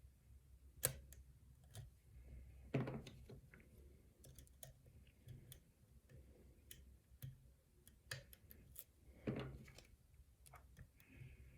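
Faint clicks and light scraping of a lock pick working the pins of a pin-tumbler challenge lock, with a few louder clicks about a second in, around three seconds and near nine seconds.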